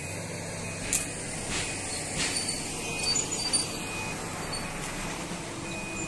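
Crawler bulldozer's diesel engine running steadily, with a few sharp knocks, the loudest about a second in.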